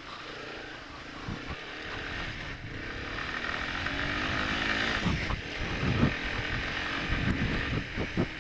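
The engine of a 1989 Yamaha Moto-4 250 ATV, a single-cylinder four-stroke, running under throttle and rising in pitch as it speeds up, with wind buffeting the helmet microphone. In the last few seconds several sharp knocks and jolts come through, the quad bouncing over the rutted dirt track.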